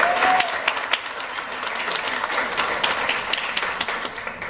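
Audience applauding, dense at first and thinning out near the end.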